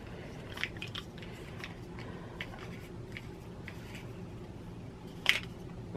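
Faint small clicks and light taps of a new rotary cutter blade and its clear plastic case being handled, over a steady low room hum, with one sharper click about five seconds in.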